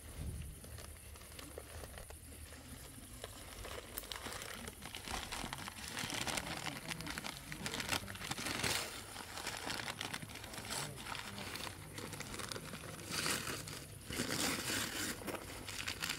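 A bag being handled, rustling and crinkling in irregular bursts, loudest about six to nine seconds in and again about thirteen to fifteen seconds in.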